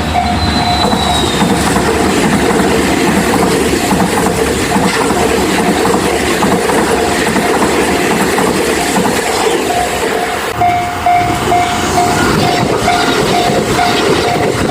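A train running through a level crossing, its wheels clattering over the rails, while the crossing's warning bell rings a steady ding about twice a second. A thin high wheel squeal sounds briefly at the start.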